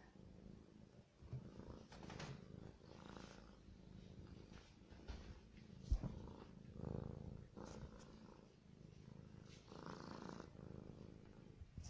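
Domestic cat purring softly as it is stroked by hand, with a faint, continuous low pulsing rumble.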